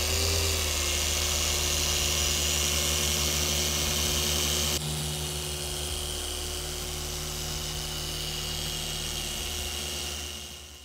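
Dual action polisher with a foam pad running steadily against car paint under hand pressure, compounding out haze. It spins up at the start, is a little quieter from about five seconds in, and winds down near the end.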